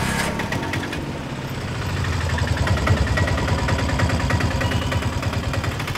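Auto-rickshaw engine running with an even pulsing beat as the three-wheeler drives along the street.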